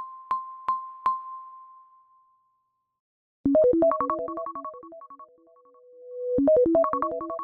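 iPhone ringtones playing. First come four quick bell-like pings on one high note that ring out and fade. After a short silence, a different ringtone starts: a fast, chiming melody of short notes that begins again a few seconds later.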